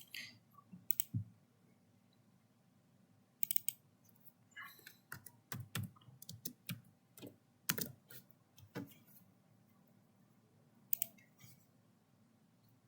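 Computer keyboard keystrokes and mouse clicks, irregular and in small clusters, made while editing a smart-relay ladder program on a PC.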